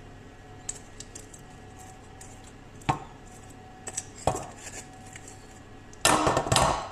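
Metal spoon clicking and knocking against a stainless-steel saucepan as hot caramel is poured out of it into a loaf tin: a few light clicks, two sharper knocks a few seconds in, then a loud scrape near the end.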